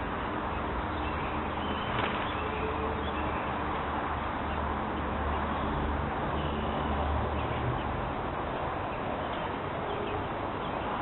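Faint, scattered high bird chirps over a steady background hiss and a low rumble.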